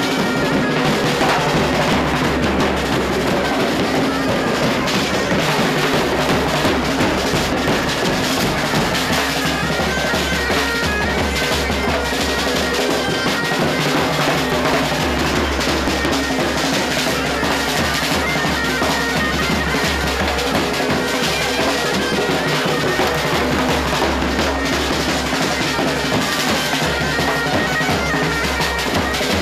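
A pipe band playing: bagpipes sounding over a steady drone, with several drums beaten by sticks keeping a continuous beat.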